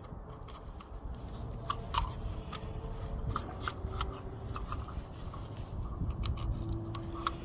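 Scattered light clicks and taps of a pick and fingers working the old rubber O-ring off a plastic oil filter housing cap, over a low background rumble.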